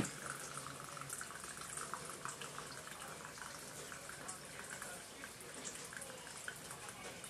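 Soy sauce pouring in a thin stream from a plastic bottle into a glass jar of sauce ingredients: a faint, steady trickle.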